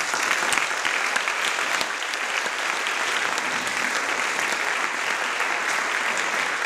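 A large audience applauding, a dense, steady clapping that holds throughout.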